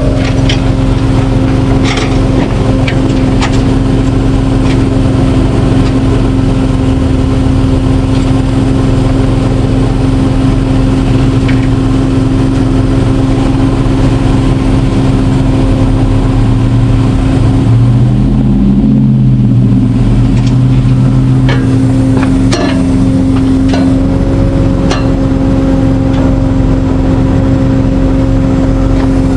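Tow truck engine running steadily with a constant whine, typical of the winch pulling a wrecked car onto the bed, with a few short metallic clicks. Around the middle a lower tone wavers up and down for a few seconds.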